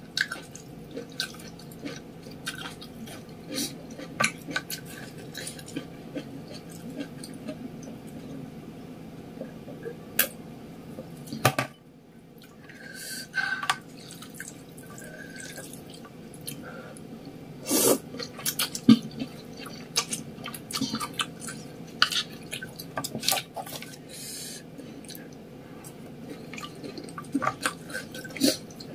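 Close-up eating of noodle soup: wet slurping and chewing sounds, with scattered sharp clicks of a plastic spoon and chopsticks against a plastic bowl.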